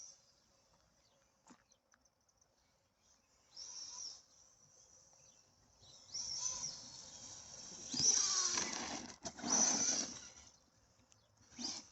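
Arrma Big Rock 6S RC monster truck's brushless motor running in short throttle bursts, about five of them, with near quiet between. Each burst is a high whine that drops away, and the two loudest come about two thirds of the way in.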